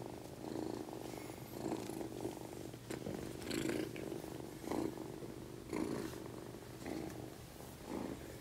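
Kitten purring close up while being stroked, a low rumble that swells and fades about once a second with its breathing.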